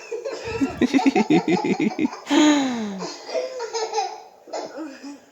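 A young child laughing hard: a quick run of laugh bursts, about six a second, then a longer laugh sliding down in pitch, then a few smaller giggles trailing off.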